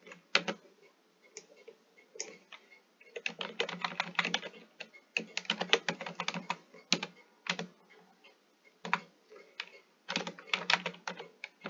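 Typing on a computer keyboard in quick bursts of key clicks, with short pauses and a few single keystrokes between the bursts.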